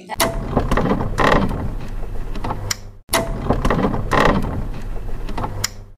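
Clicking and rattling of a ring light and its tripod stand being handled and fitted together, over a low hum. The same three-second stretch of sound repeats twice, cut off sharply each time.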